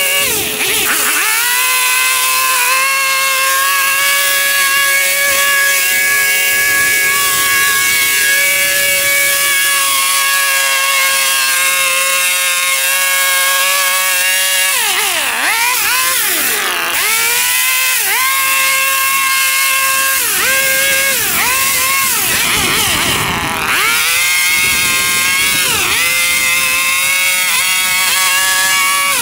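Small petrol engine of lawn-care equipment running at high revs, cutting very tall, overgrown grass. It holds steady at first. From about halfway through, its pitch dips sharply and recovers again and again as the engine bogs under the load of the thick grass.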